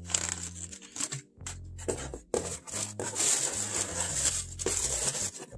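Paper packing being crumpled and rustled by hand in short bursts, densest in the last couple of seconds.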